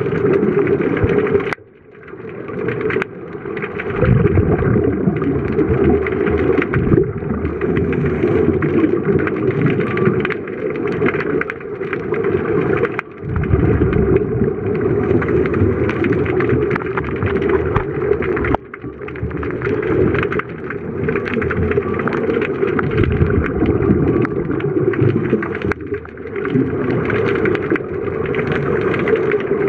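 Muffled underwater rumble of scuba regulator exhaust bubbles, heard through a waterproof camera housing. The churning noise runs steadily and dips briefly a few times.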